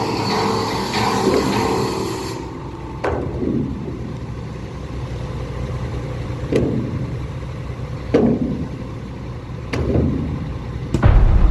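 Lovol FR220D crawler excavator's diesel engine running steadily, with several sharp metallic clanks from the working machine spaced one to three seconds apart. The engine grows louder and deeper near the end as it takes load. Background music plays for the first couple of seconds.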